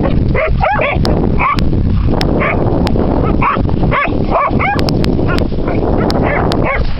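Dogs barking and yipping at play, many short calls in quick succession over a steady low rumble.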